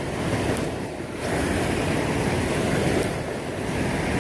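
Steady rushing of creek water running over rocks, getting louder about a second in and then holding even.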